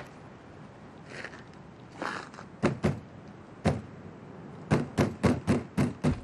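A fist pounding on a metal door: three knocks, then a quick run of about six.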